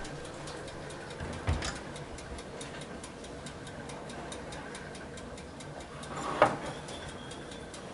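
A ceramic mug knocking against other mugs as one is taken from a cupboard shelf, a sharp clink about six seconds in, after a dull thump from the wooden cupboard door being opened about a second and a half in. A light, even ticking, a few ticks a second, goes on underneath.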